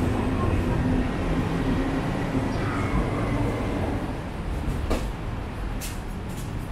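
Steady city traffic din with a vehicle's low hum fading away a couple of seconds in, and two sharp clicks near the end.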